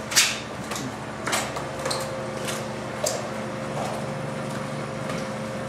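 Footsteps walking across a hard floor, a step about every half second for the first three seconds, over a steady electrical hum.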